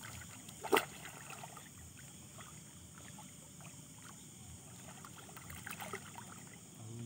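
Faint sloshing and trickling of shallow water stirred by someone wading, with small scattered ticks and one sharp click just under a second in. A steady high hum of night insects sits behind it.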